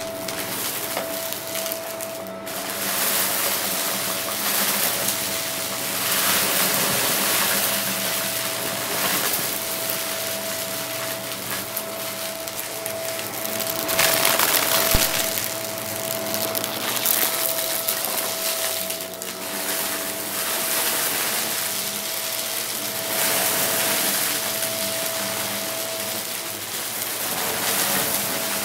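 Upright vacuum cleaner running with a steady whine, its hiss swelling and easing as it is pushed back and forth through a crunchy mess of small debris that rattles and crackles up into it. It is loudest about halfway through.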